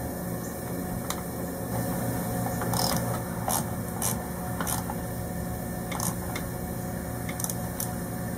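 Nylon cable ties being pulled tight around battery-switch wiring: a series of short ratcheting rasps, over a steady low hum.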